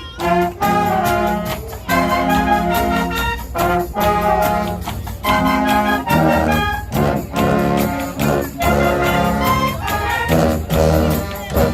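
High school marching band playing loudly, trumpets and trombones carrying the tune over frequent drum hits.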